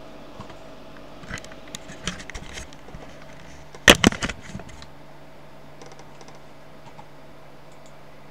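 Handling noise: scattered clicks and knocks, then two loud sharp knocks close together about four seconds in, while the camera is swung round and set back from the desk. A steady low hum runs underneath.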